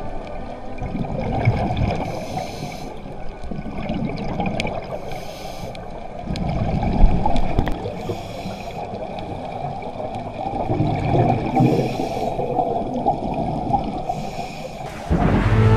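A scuba diver breathing through a regulator underwater: a hiss comes about every three seconds over a low bubbling rumble of exhaled bubbles. Music starts near the end.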